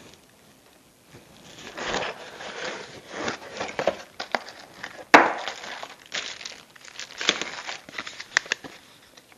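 Plastic bags crinkling and a cardboard box being handled as a kit is unpacked, a run of rustles and small ticks, with one sharp click about five seconds in.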